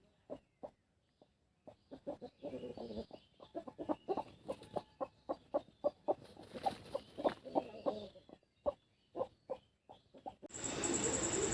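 Parrot-beak Aseel chicken clucking: a long run of short, low clucks, about three a second, coming thicker in the middle of the run.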